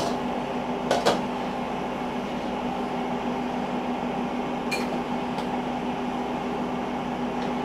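Steady appliance hum, with a short clink about a second in and two faint clicks a little after the middle as the lid and control knobs of an electric stove are handled.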